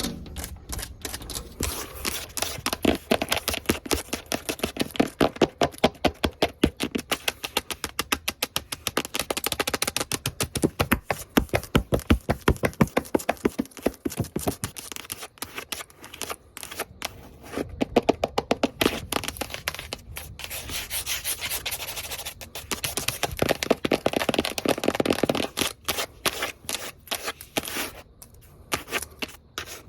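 Long fingernails tapping fast and hard on hard surfaces, in rapid runs of many taps a second mixed with scratching, with a few short pauses.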